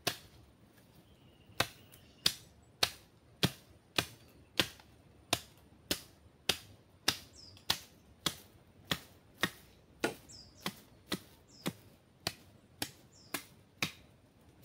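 Wooden stake being chopped with a blade to sharpen its end to a point. The strikes are sharp and evenly paced, about one every 0.6 seconds, with a short pause just after the first one.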